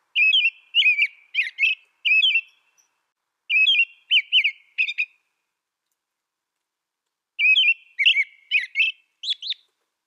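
American robin singing: three bouts of short whistled, warbling phrases, the first right away, the second about three and a half seconds in, the third from about seven seconds in, with silent pauses between them.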